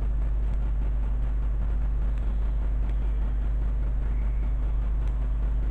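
Steady low hum with an even background hiss, unchanging throughout, with no distinct sounds over it.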